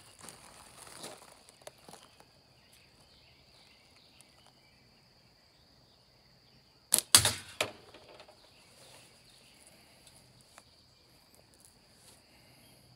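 A slingshot shot about seven seconds in: a sharp crack as the flat rubber bands and pouch snap forward on release, followed within half a second by one or two sharp impacts as the 3/8-inch steel ball strikes at the can in its catch box. Insects keep up a steady high buzz in the background.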